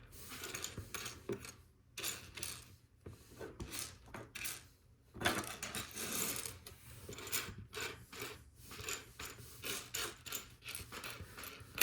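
Loose Lego Technic plastic pieces clicking and clattering as a hand rummages through them, a busy run of small rattles and rustles.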